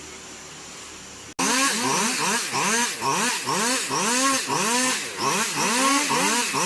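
Faint background hum, then an abrupt cut about a second and a half in to engines revving up and down over and over, several revs overlapping: chainsaws cutting through storm-felled branches.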